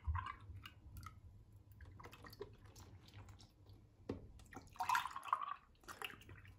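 Milk pouring from a carton into a glass, with small drips and clinks, and a louder splashing patch about five seconds in.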